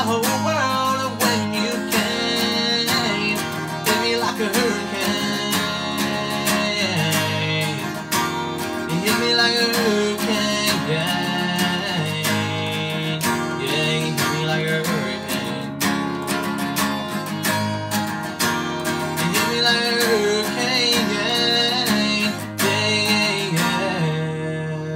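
Acoustic guitar strummed steadily, with a man singing a country song over it.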